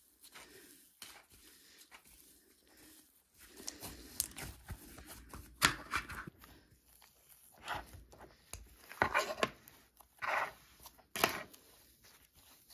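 Soft, doughy slime being squeezed and stretched by hand, giving irregular sizzly crackles and snaps. The louder snaps come in the second half.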